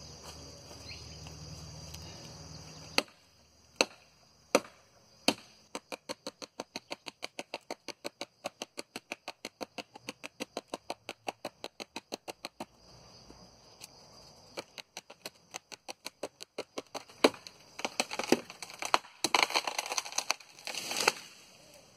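Wood being chopped while a tree is cut up for firewood: a few sharp separate blows, then a fast, even run of taps about five a second for several seconds, then a cluster of irregular strikes and cracking near the end.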